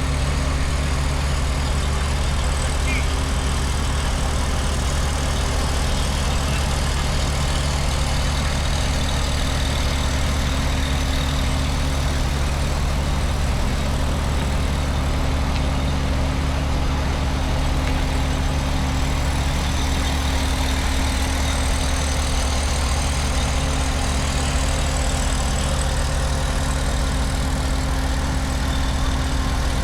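An engine idling steadily: a low, constant drone with no change in pitch or level.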